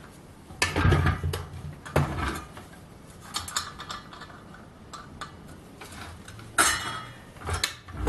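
Metal clanks, knocks and rattles from a Black & Decker circular saw being handled and its blade guard worked back and forth, with a loud knock about a second in and several more after. The new 184 mm blade is fouling the guard, and the guard is being moved to check whether the blade clears.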